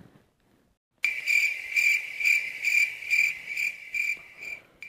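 Cricket-chirping sound effect, the comic cue for an awkward silence when nobody can answer: a high chirp repeated about twice a second. It starts suddenly about a second in, after dead silence, and breaks off briefly near the end.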